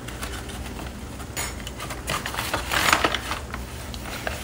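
Light kitchen handling noises: a sharp click about a second and a half in, a short rustling burst about three seconds in, and a few small taps near the end, over a steady low hum.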